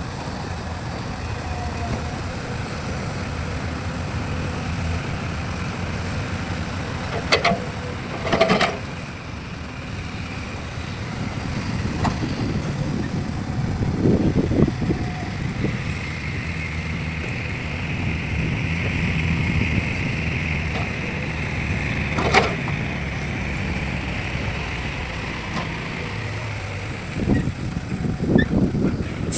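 Heavy diesel machinery running steadily, with a few sharp metallic knocks and a higher whine for several seconds in the middle.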